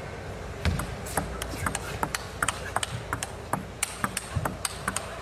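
Table tennis rally: the plastic ball cracks off the rubber-faced bats and bounces on the table in quick alternating sharp clicks, several a second.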